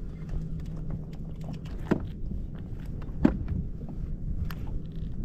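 Low, steady rumble of wind and water around a kayak, with scattered small clicks and two sharper knocks, about two seconds and a little over three seconds in.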